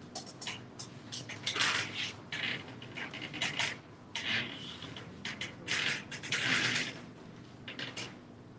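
Chalkboard being wiped with a cloth: a run of irregular swishing rubbing strokes, the longest and loudest about two seconds in and again near six to seven seconds.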